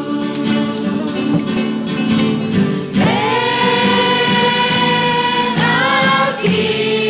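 A choir singing a hymn, with a long held note starting about three seconds in and shorter sung notes after it.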